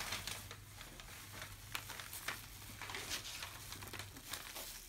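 Faint, irregular rustling and crinkling of plastic bags worn as gloves as the hands move, over a steady low hum.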